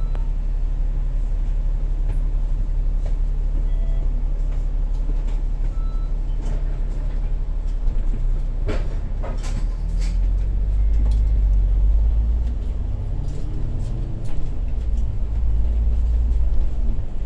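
Double-decker bus under way, heard from the upper deck: a steady low engine rumble with a few sharp rattles about nine seconds in. From about ten seconds in the engine pulls harder and gets louder, its pitch rising and falling.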